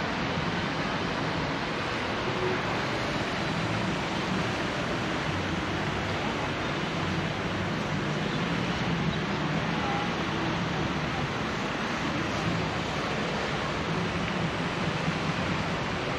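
Steady rushing splash of a fountain's water spray falling into a lake, even and unbroken throughout.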